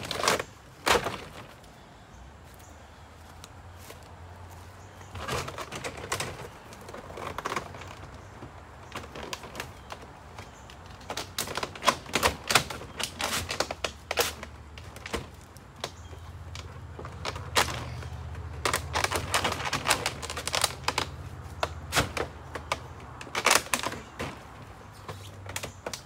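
Panel pieces being pushed back into place and snapped together, making irregular bursts of sharp clicks, rattles and scrapes with quieter gaps between them. A low steady hum runs underneath.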